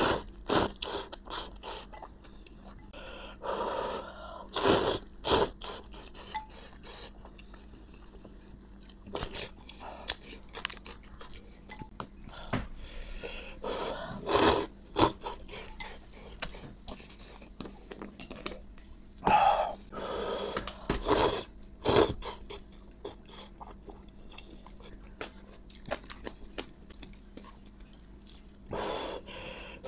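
A person slurping noodles in hot soup from chopsticks in several loud, short bursts, with chewing and small crunching sounds between them.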